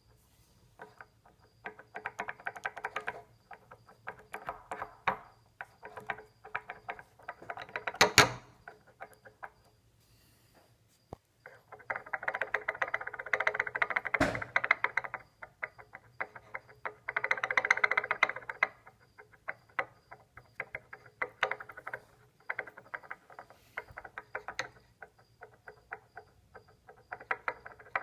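Rattling and clicking from a BMW VANOS variable valve timing unit, coming in bursts of rapid clicks with pauses between, and two sharper knocks along the way.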